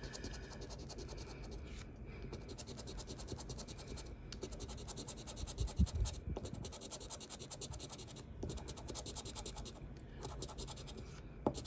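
Rapid scratching at the coating of a scratch-off lottery ticket, stroke after stroke, with short pauses every couple of seconds as each spot is uncovered. There is a soft bump about halfway through.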